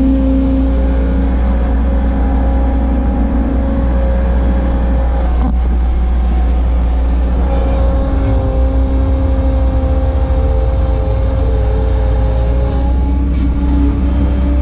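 1988 Bobcat 743 skid steer's engine running steadily while working, its pitch shifting slightly now and then as the load changes.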